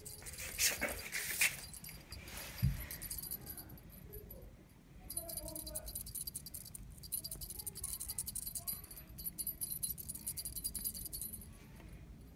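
A cat teaser toy being waved and shaken, giving a light, rapid jingling, with a few handling knocks in the first second or so.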